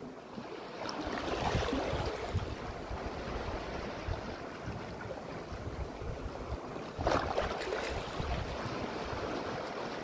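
Sea waves washing in over a rocky shore, with a surge about a second in and a louder wash about seven seconds in. Wind buffets the microphone underneath.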